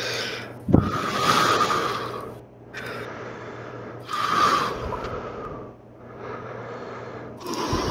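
Heavy breathing: long rushes of breath in and out about every one and a half seconds, alternately louder and softer. There is a low thump a little under a second in.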